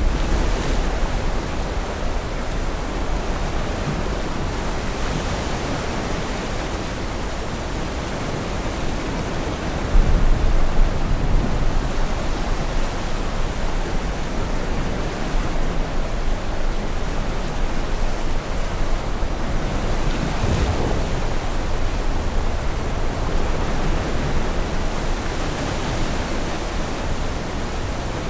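Weather sound effect: a steady rushing noise with low rumbling surges, the strongest about ten seconds in and another near twenty seconds in.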